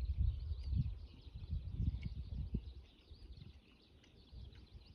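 Wind buffeting the microphone in uneven gusts, strongest in the first few seconds and easing off after, with many small birds chirping in the background.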